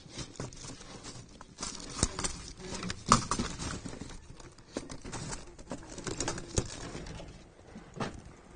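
Peacock bass splashing at the water's surface beside a boat while held in a lip-grip tool, with scattered sharp clicks and knocks at irregular intervals.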